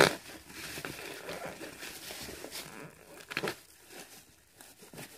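Clear plastic packaging film crinkling and tearing as it is pulled off a new chair part by hand, with a short run of louder crackles about three and a half seconds in.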